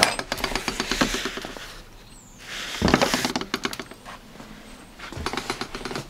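A key rattling, scraping and clicking in an old door lock, with a louder burst of rattling about three seconds in.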